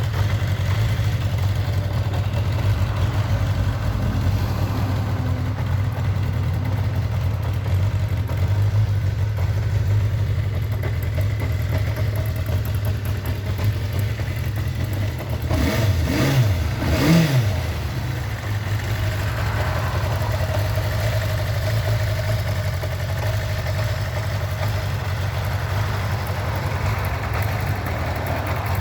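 Kawasaki Zephyr 550's air-cooled inline-four idling with a mechanical rattle, given two quick blips of the throttle a little past halfway, then settling back to idle.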